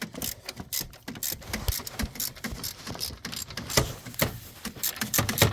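Hand ratchet on a socket and long extension clicking in short irregular runs, with metal taps and clinks of the tools, as the thermostat housing bolts are worked loose. A few heavier knocks come near the end.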